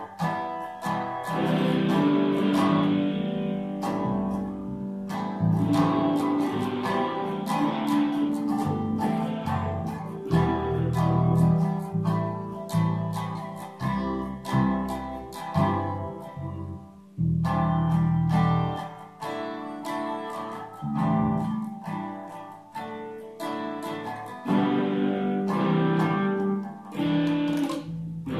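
Guitar music played in the room: strummed chords and picked notes over a steady run of low bass notes.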